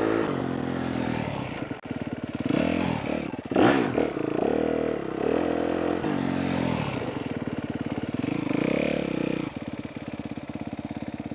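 Dirt bike engine revving up and easing off again and again as the rider accelerates and backs off through short runs, loudest about three and a half seconds in. Near the end it drops back to a lower, steady putter.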